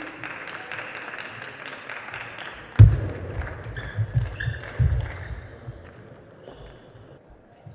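Table tennis point: sharp clicks of celluloid-type balls over hall noise, then about three seconds in a heavy low thud, the loudest sound, followed by a few more thuds of players' feet on the court floor during a short rally.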